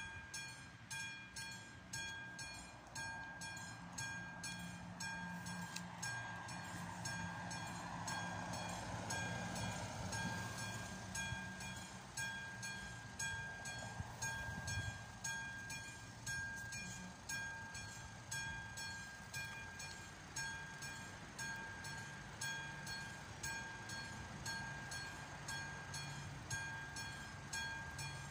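Classic mechanical warning bell of a Czech AŽD 71 level-crossing signal ringing steadily, about two strikes a second, each strike ringing out; it sounds while the crossing is closed for an approaching train. Partway through, a car drives up and idles at the lowered barrier.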